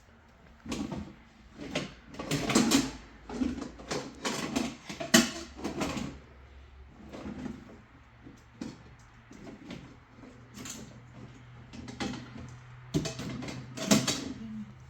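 Irregular knocks and clatter of objects being handled, coming thickest in the first half and again near the end.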